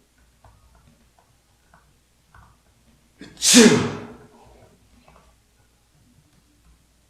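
A man's single loud sneeze about three and a half seconds in: a short 'ah' lead-in, then a sharp 'choo' whose pitch drops as it fades.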